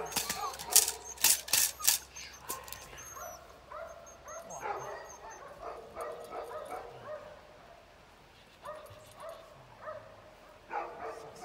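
Eight-week-old Belgian Malinois puppy barking in short, high-pitched yips while tugging a rag. A few sharp slaps or snaps come in the first two seconds.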